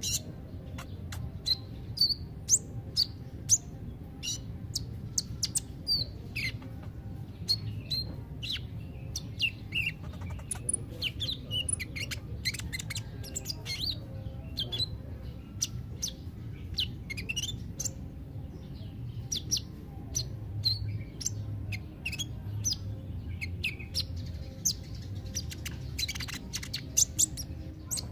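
Kolibri ninja (purple-throated sunbird) singing: a long, busy run of quick, thin, high chirps and short twitters with barely a pause, over a low steady background hum.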